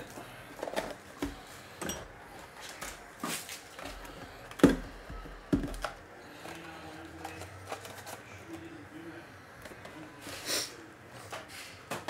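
Trading cards and their cardboard packaging being handled on a table: scattered clicks and light knocks, with a sharper knock about halfway through, a second just after, and a brief swish near the end.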